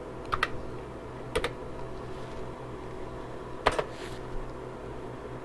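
A few sharp keystrokes on the TRS-80 Model II's keyboard, three clicks a second or two apart, over the computer's steady running hum.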